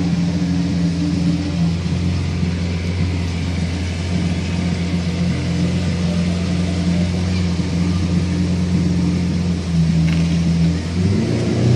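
Lamborghini Aventador's V12 idling steadily, with a deep, even tone. Near the end the pitch rises and it gets a little louder as the engine is revved up slightly.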